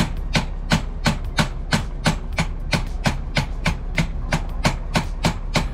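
A hammer striking in steady, evenly spaced taps, about three a second, giving a stuck screw or lock part on an RV door a little persuasion to free it.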